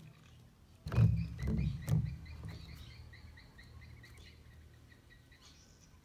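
A few knocks and rustles about a second in, the loudest sound here, while an animal outside gives a rapid run of short, evenly repeated chirps for several seconds.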